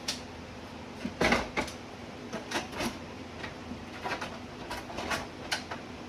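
Paper cutters being put away: a series of knocks and clatters of hard plastic and metal being handled and set down, the loudest a little over a second in.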